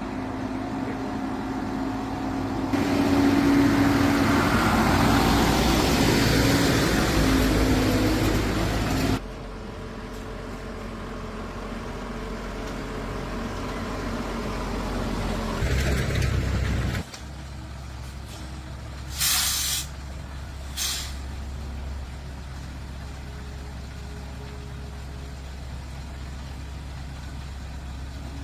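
A heavy vehicle engine running, with a louder, noisier stretch for several seconds near the start, then settling to a steady low run. About halfway through come two short hisses of released air, like an air brake.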